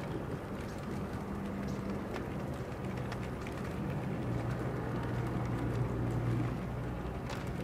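A distant engine running steadily: a low drone with a hum that grows a little stronger about halfway through, over a faint wash of outdoor background noise.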